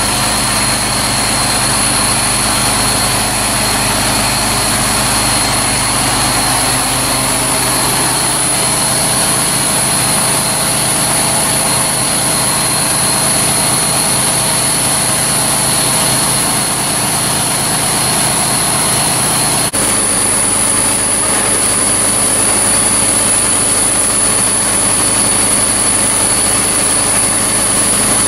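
A machine running steadily with a high whine over a broad rushing noise, with a brief drop about twenty seconds in.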